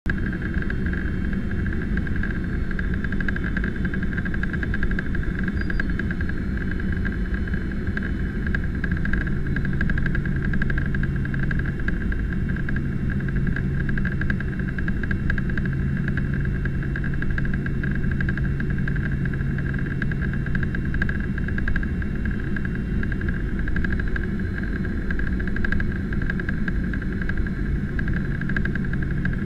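Boeing 767-300ER cabin noise in flight at a window seat by the engine: a steady rush of engine and airflow noise. A low steady hum joins about nine seconds in and drops out briefly a few times.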